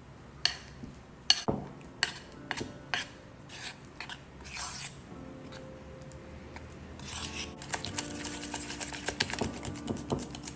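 A metal spoon scrapes and knocks against the side of a bowl while mashing softened butter, with separate clicks about every half second. About seven seconds in, a wire whisk takes over, beating the creamy mixture with quick, rapid strokes.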